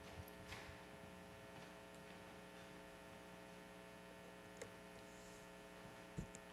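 Near silence: a steady electrical mains hum from the church's sound system, with a few faint soft knocks, the clearest near the end.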